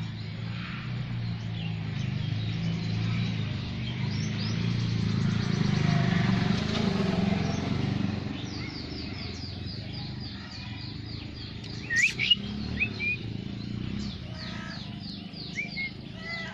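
Birds chirping, with a fast run of repeated high, downward-sweeping chirps in the second half and a few louder calls about twelve seconds in, over a low steady rumble.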